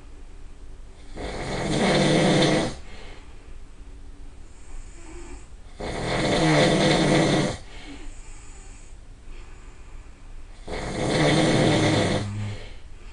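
A person snoring loudly: three long snores, one about every four and a half seconds, each swelling up and then cutting off sharply, with a much quieter stretch between them.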